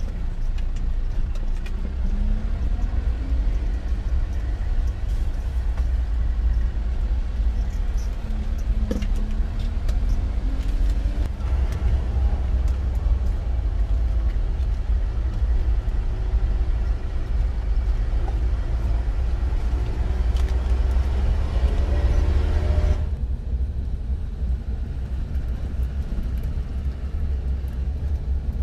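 Isuzu Elf campervan's diesel engine and road noise heard from inside the cab while driving a broken-up road: a steady low rumble, with the engine pitch rising and falling several times as it revs through the gears and scattered knocks and rattles from the rough surface. About three-quarters of the way through the higher noise drops away, leaving mostly the low rumble.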